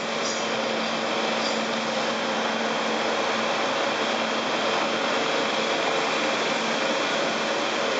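Bobcat T770 tracked loader's diesel engine running steadily as the machine drives along the trench on its rubber tracks, with a steady whine held over the engine noise.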